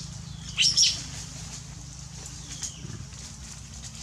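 Short, high-pitched squeals from baby long-tailed macaques at play, bunched together about half a second to a second in, over a steady low hum.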